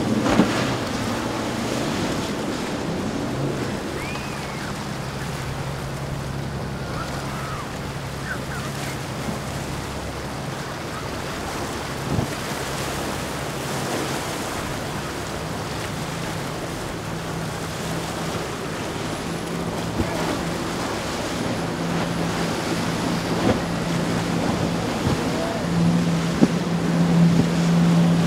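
Waves breaking and the hiss of hull spray, with wind on the microphone, over the steady low drone of a Sea Ray 540 Sundancer express cruiser's engines. The drone grows louder near the end as the cruiser powers through the inlet chop.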